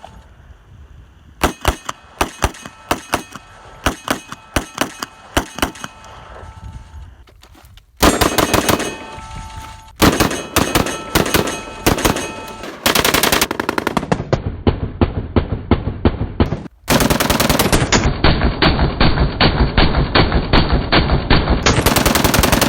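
Type 95 (QBZ-95) 5.8 mm bullpup assault rifles firing. For the first several seconds there are spaced single shots; from about eight seconds in come long stretches of rapid automatic fire, almost continuous and broken by abrupt cuts.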